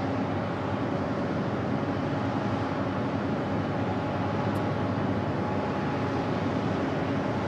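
Jet engine noise running steadily: a continuous rush with faint, steady whining tones in it.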